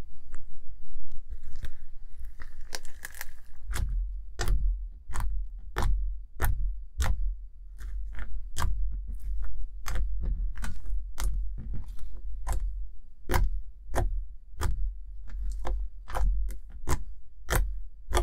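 Homemade no-glue, no-borax slime being worked by hand: it crackles as it is spread out, then gives sharp wet clicks and pops, about one and a half a second, as fingertips press into it and pull away.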